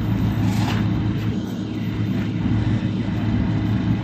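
Heavy truck engine idling with a steady low drone. A short burst of hiss or clatter cuts through about half a second in.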